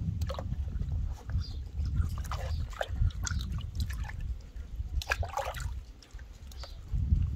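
Water splashing and dripping in a plastic dishpan as hands scoop it up and pour it over a puppy's head, in short irregular splashes with a busier cluster about five seconds in, over a steady low rumble.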